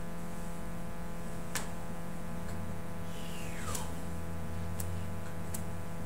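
Steady low electrical hum and hiss with a few faint sharp clicks, and a brief falling squeak about three seconds in.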